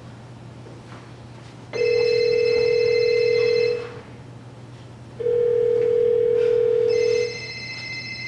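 Telephone ringing: two long steady rings of about two seconds each, with a gap of over a second between them.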